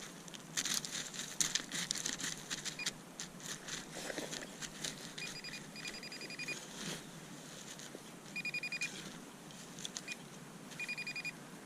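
Handheld metal-detector pinpointer giving bursts of rapid, high-pitched pulsed beeping as it is passed over a buried target. Scraping and rustling of digging in the ground come first.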